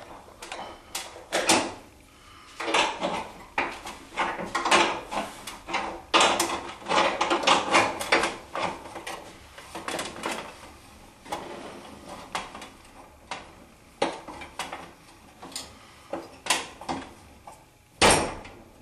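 A 14mm spanner working the top nut on a vending tower: irregular metal clicks, clinks and clatter as the spanner is fitted and turned and the parts are handled, with a louder knock near the end.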